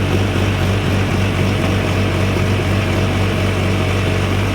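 Backhoe's diesel engine running steadily, a loud, even low drone.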